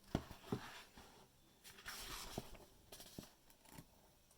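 Faint rustling and a few soft taps of a picture book's paper pages being handled and turned.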